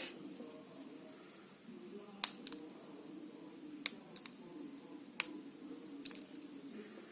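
Sharp plastic clicks, about five, a second or two apart, as the comb guard of a Philips Bodygroom body trimmer is taken off and snapped back on.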